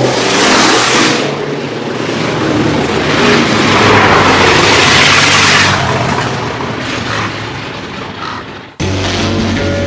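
Hopped-up traditional hot rods passing close by one after another at speed, their exhausts loud as each goes past, the loudest passes near the start and about four to five seconds in, then fading away. About nine seconds in the sound cuts off abruptly to rock music.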